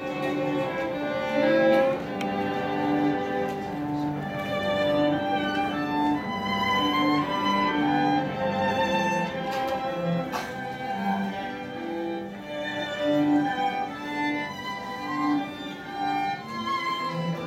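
String quartet, violins and cello, playing a melody in harmony with sustained bowed notes.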